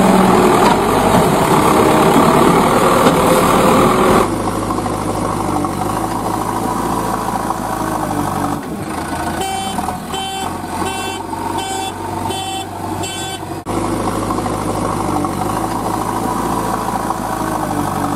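Motor vehicle engine running steadily, a little quieter after about four seconds, with a run of about six evenly spaced beeps around the middle.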